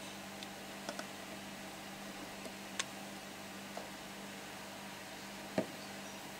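A quiet steady low hum with a few faint, short clicks and taps, the loudest about five and a half seconds in.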